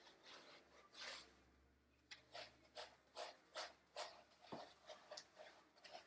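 Faint rubbing of gloved hands scrubbing shampoo lather through a wet standard poodle's curly coat, settling into a regular rhythm of about three strokes a second from about two seconds in.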